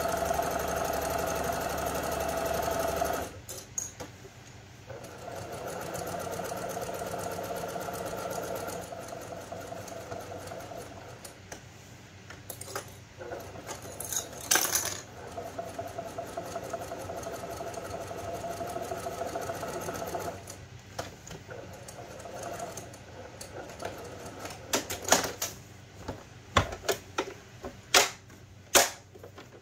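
Brother PQ1500 straight-stitch sewing machine running in three spells of stitching a few seconds each, with a fast even needle rhythm and pauses between, sewing a 2 mm reinforcing stitch around the edge of a layered cloth pad. Near the end, several sharp knocks and clacks.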